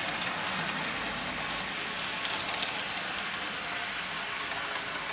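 N-scale model trains running around the track: a steady, even whir and rattle of their small motors and wheels.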